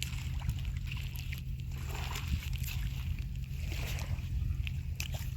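Water sloshing and lapping in soft surges about once a second, over a steady low rumble, with a few faint clicks.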